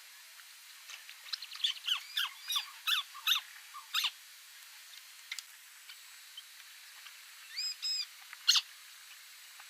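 White-browed crake calling: a run of about eight short, quick notes over some three seconds. A few seconds later comes a shorter group of three or four notes.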